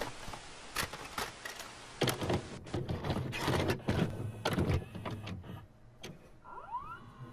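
Videocassette recorder mechanism: a run of irregular clunks and clicks with mechanical whirring as a tape loads, and a short rising whine near the end.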